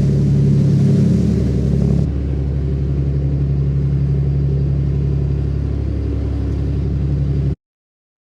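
A boat's engine running steadily. The sound shifts slightly about two seconds in, then cuts off abruptly near the end.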